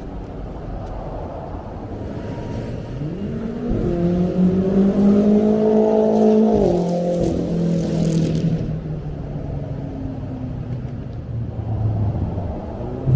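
BMW X6M twin-turbo V8 on a straight-piped exhaust, accelerating hard. The engine note climbs for about three seconds, then cuts off on lift-off with a brief hiss and falls away. A second pull starts near the end.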